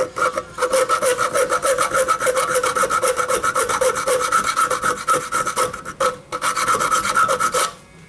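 Hand file rasping in fast, short strokes across the notch of a steel trap's pan, the metal ringing under the strokes as the notch is filed flat to night-latch the trap. The filing breaks off briefly about six seconds in and stops just before the end.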